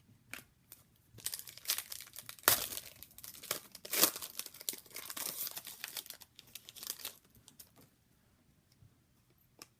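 A trading card pack wrapper being torn open and crinkled by hand, a dense crackling that starts about a second in, peaks twice, and dies away about seven seconds in.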